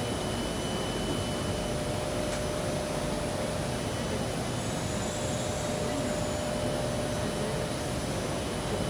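Steady hum and rush of an underground metro station's ambience, the kind of even noise from its ventilation and air-handling, with a faint steady tone running through it.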